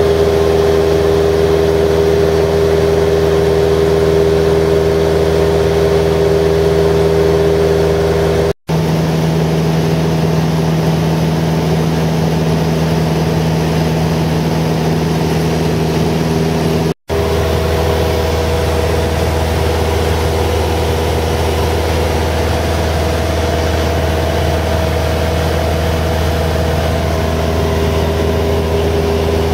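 Small plane's piston engine and propeller running steadily, heard from inside the cockpit. The sound cuts out briefly twice, about a third of the way in and just past halfway, and the engine's pitch shifts a little after each break.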